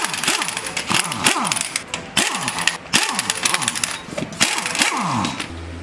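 Pneumatic impact wrench loosening a pickup's wheel lug nuts: a series of short, loud bursts, each trailing off in a falling whine as the tool spins down between nuts.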